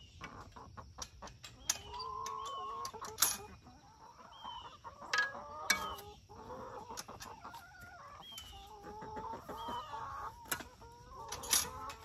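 A flock of chicken hens clucking and making drawn-out calls, with a few sharp clicks and knocks scattered through.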